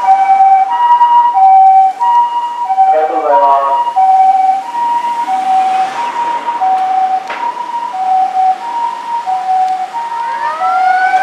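Japanese ambulance on an emergency run, its electronic two-tone hi-lo siren alternating steadily between a high and a low note. Its mechanical motor siren winds down about three seconds in and winds up again in a rising wail near the end.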